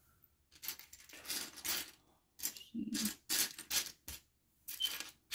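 Small plastic building bricks clattering and rattling against each other as a hand rummages through a loose pile of them, in a string of short bursts.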